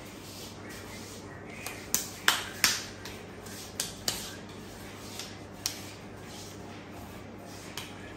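A series of sharp, irregular snapping clicks, about nine in all, the loudest three close together about two seconds in, over a faint steady hum.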